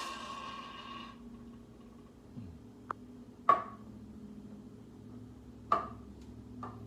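De'Longhi Dedica Arte espresso machine running with a steady hiss and hum that cuts off about a second in. It is followed by four sharp clinks or knocks, the loudest two about two seconds apart.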